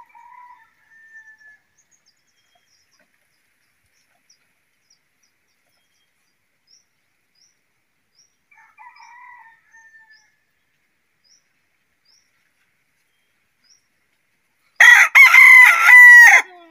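A rooster crowing loudly near the end: one long cock-a-doodle-doo lasting about a second and a half, with a brief catch just after it starts.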